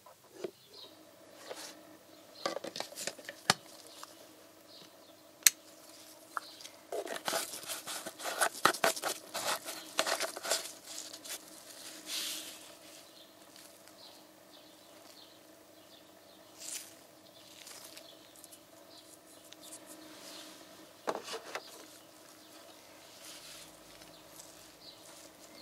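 Handling noise from gloved hands working with a plastic oil bottle and a small metal test machine: scattered clicks and knocks, with a dense spell of rattling and crinkling about seven to eleven seconds in, over a faint steady hum.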